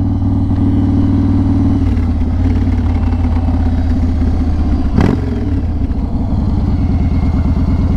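Yamaha Raider cruiser's big V-twin engine running steadily under the rider, heard close up. The engine note drops a little about two seconds in, and there is a single sharp knock about five seconds in.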